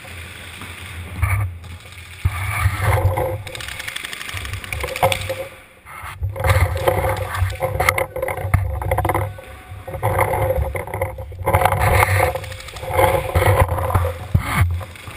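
Muffled rumbling and rustling from a camera carried on a paintball player as he moves behind a bunker, with a few sharp pops of paintball markers firing.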